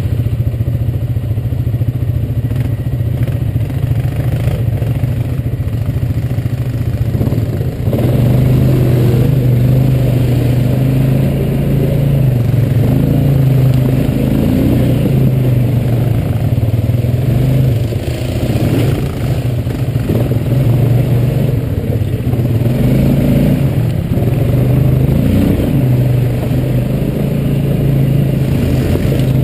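ATV engine running and revving up and down as the quad crawls over a rocky trail, louder from about eight seconds in.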